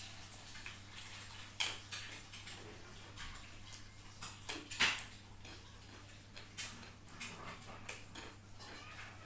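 Eating noises from a bowl of spicy instant noodles: irregular clicks and smacks of chewing and of a utensil touching the dish, with two sharper ones about a second and a half and about five seconds in.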